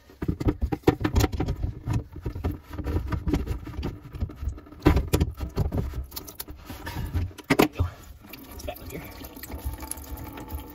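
Water trickling from a loosened P-trap slip-joint nut into a plastic bucket as the last of a blocked kitchen sink drains. Over the first eight seconds or so it is mixed with irregular knocks and rattles of handling, then it settles to a steadier, fainter trickle.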